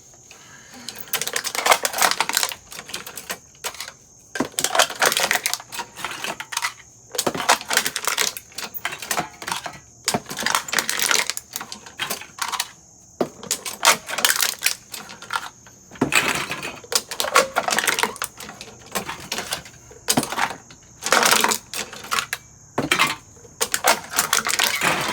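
Empty aluminium drink cans being crushed one after another: about a dozen bursts of crackling, crinkling metal, each lasting up to a couple of seconds, with short pauses between.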